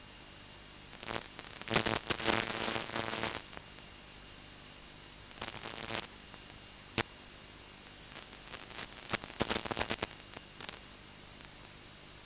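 Static from an analog FPV video downlink's audio: a steady hiss with several bursts of crackling noise and one sharp click, the sound of the link breaking up at long range.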